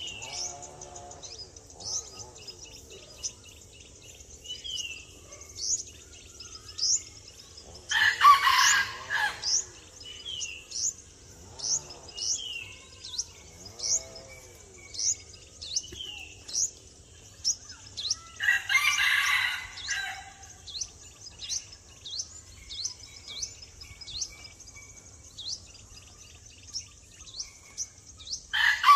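Bird calls: a small bird's short high chirps repeat about once a second. Three louder, longer calls, each about a second and a half, come roughly ten seconds apart.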